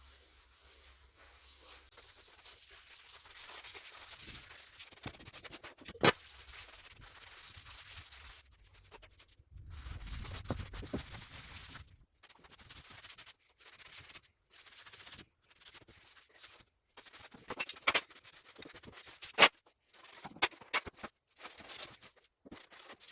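Irregular hand rubbing strokes across a plywood worktop, a cloth wiping oil into the wood, with a few sharp knocks, the loudest about six seconds in and near the end.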